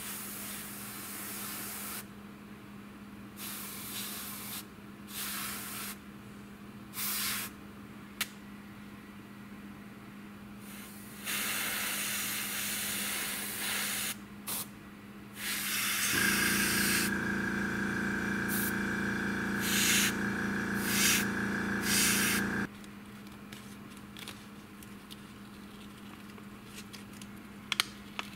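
Airbrush spraying a semi-gloss coat in short bursts of hiss, one to three seconds each. About sixteen seconds in, the air compressor motor starts running with a steady hum under further spray bursts, and cuts off suddenly about six seconds later.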